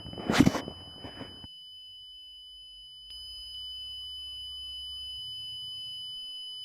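A steady high-pitched electronic tone, with a short loud burst of noise about half a second in and a faint low rumble under the tone for the rest.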